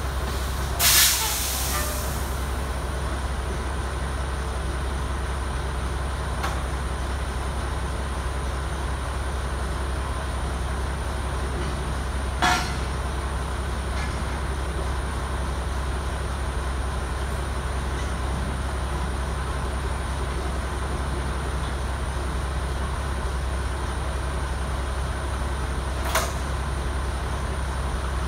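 Steady low hum of a heavy truck idling, with a loud burst of air hiss about a second in and two sharp knocks, one about halfway and one near the end.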